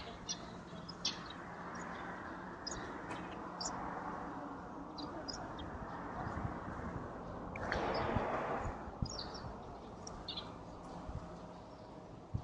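Small birds chirping now and then over a steady low hum, with a brief swell of rushing noise about eight seconds in.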